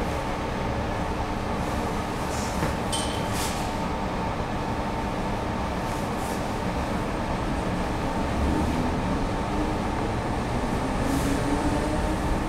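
Interior running noise of an 8600 class DART electric train pulling away, a steady hum with a brief high beep about three seconds in. Over the last few seconds a low motor whine rises in pitch as the train gathers speed.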